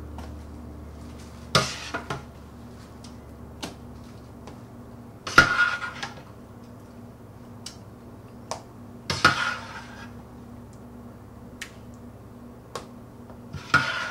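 A metal spoon scraping and knocking against a stainless steel pot as ground raw meat is scooped out into plastic tubs. A short scrape ends in a ringing clank about every four seconds, the loudest a little over five seconds in.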